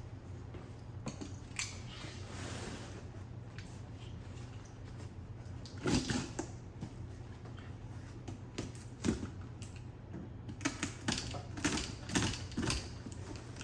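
Packaging being handled and opened by hand: scattered clicks and knocks, a rustle a couple of seconds in, a louder knock about six seconds in, and a quick run of clicks near the end, over a steady low hum.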